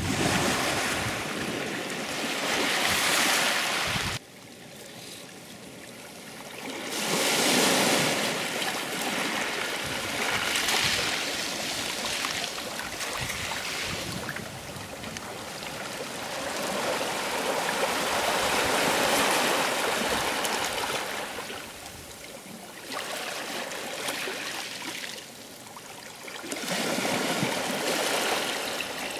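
Sea waves breaking and washing on the shore, the surf swelling and falling away every few seconds, with a sudden drop in level about four seconds in.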